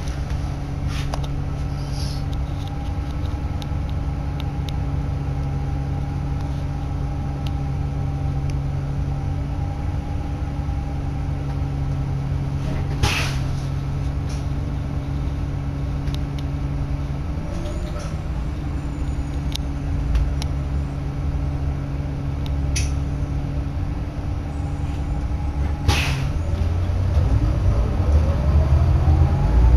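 Nova LFS articulated bus's diesel engine idling steadily, heard from inside the cabin, with two sharp clacks. In the last few seconds the engine note rises and grows louder as the bus pulls away.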